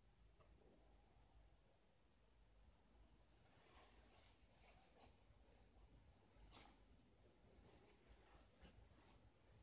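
Near silence: a faint, steady high-pitched pulsing trill, about seven pulses a second, with a few soft computer-keyboard clicks.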